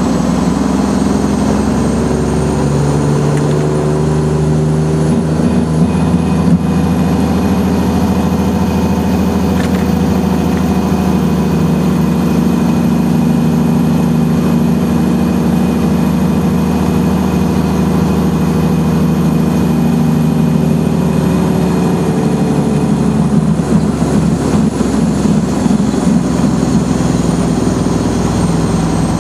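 Truck engine running steadily under way, heard from inside the cab, its pitch shifting slightly a few seconds in and again near the end. A faint high whine slowly rises and then falls back.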